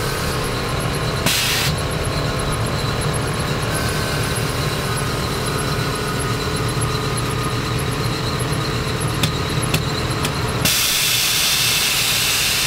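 Air suspension of a restomod classic Range Rover changing ride height: a steady low running sound as the body rises, a short hiss about a second in, a few clicks shortly before the end, then a loud steady hiss of air from about eleven seconds in.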